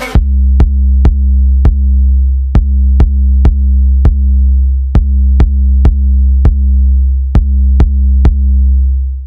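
Electronic dance music: a deep, steady sub-bass note under sharp drum-machine clicks, about two a second, with the bass fading out near the end.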